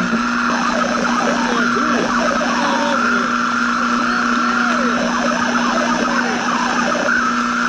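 Old radio reception noise: steady static hiss under a constant low hum and a steady high whine, with many short warbling whistles that glide up and down in pitch.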